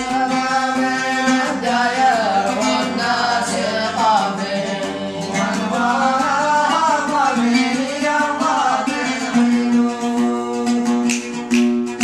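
A male voice sings a Saada-style Yemeni folk melody in long, winding phrases over a plucked string instrument and light regular taps. The singing stops about nine seconds in and the instrument carries on.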